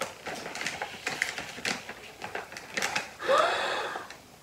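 Brown kraft-paper plant sleeve crinkling and crackling as it is handled and lifted, in quick irregular crackles.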